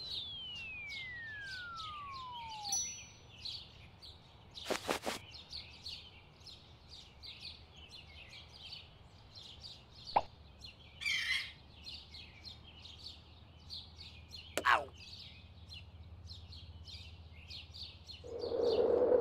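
Birds chirping steadily as a background ambience, with a whistle sliding down in pitch over the first three seconds and a few short, sharp knocks and pops around the middle. Music comes in near the end.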